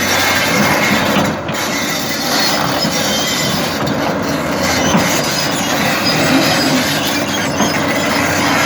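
Hyundai excavator running, with a dense, continuous metallic clatter and a faint steady whine over the engine.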